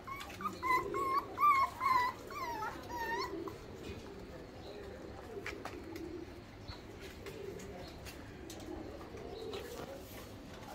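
Rottweiler puppies whimpering in a run of short, wavering high whines while crowding the food bowl; the whining stops about three and a half seconds in.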